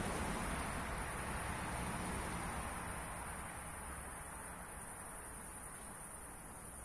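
Outdoor background noise: a broad rushing sound that slowly fades over several seconds, with a steady high-pitched hiss throughout.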